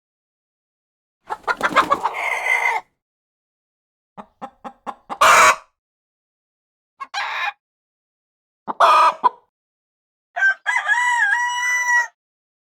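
Chickens clucking and squawking in several short separate calls, then a rooster crowing once near the end.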